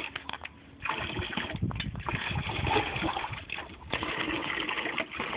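Water splashing and sloshing in a bath, uneven and irregular, with a short lull just after it begins.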